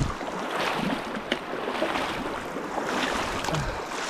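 Waipakihi River running steadily over its stony bed, with a couple of brief sharper sounds in the water.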